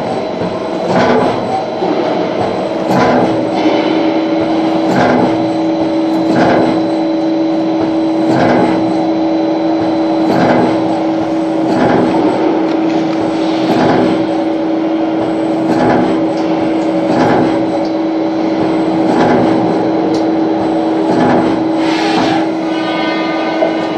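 CNC lathe running while machining, a steady machine hum with two held tones and a regular knock about once a second.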